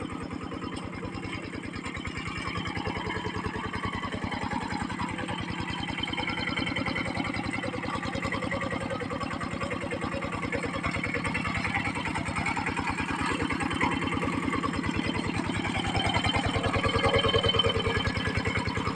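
Kubota single-cylinder diesel engine of a hand tractor running steadily with a fast, even beat as it works the ground, getting a little louder near the end.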